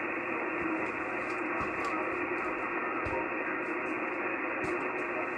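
Icom HF transceiver receiving the 80-metre band near 3.795 MHz, its speaker giving a steady, even static hiss with the treble cut off and no clear voice coming through.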